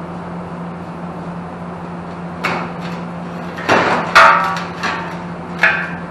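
Powder-coated metal fender parts knocked and set down on a steel-topped workbench: four clanks from about two seconds in, the loudest about four seconds in with a short metallic ring. A steady low hum runs underneath.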